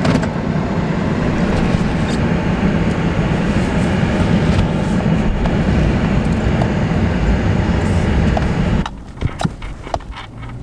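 Chevrolet Silverado pickup truck running, a loud steady rumble that drops off suddenly about nine seconds in to a much quieter hum with a few clicks.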